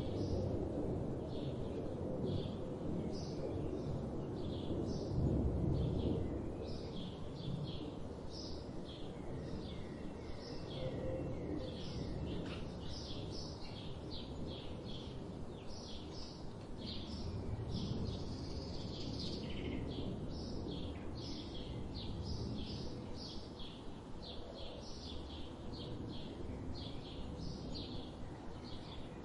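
Many small birds chirping and tweeting in quick, repeated short notes over a steady low background rumble.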